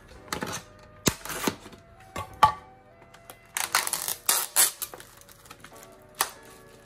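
Plastic meat tray and its clear film crinkling and crackling in short bursts, densest in a run near the middle, as ground beef is peeled out of the package. Soft background music underneath.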